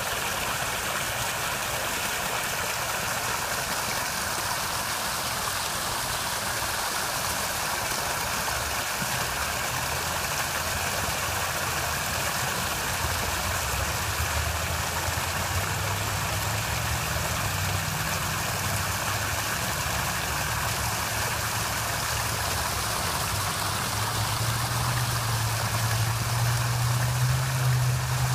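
Artificial garden waterfall: water pouring steadily over stone ledges and splashing into the pool below. A low hum joins in about halfway through and grows louder near the end.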